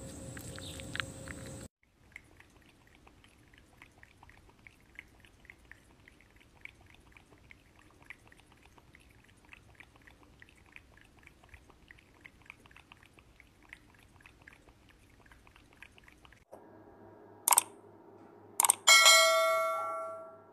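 A cat licking at the mouth of a plastic water bottle: faint, quick wet tongue clicks, about four a second. Near the end come two sharp clicks and a ringing bell chime from a subscribe-button sound effect.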